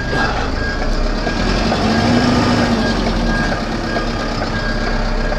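A DAF LF 12-ton rigid truck reversing slowly: its reversing alarm beeps about twice a second over the steady running of its diesel engine.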